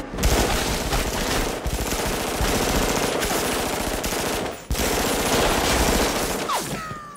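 Continuous fully automatic submachine-gun fire, several guns at once, a dense run of shots with a short break about four and a half seconds in. It dies away near the end with a falling ringing tone.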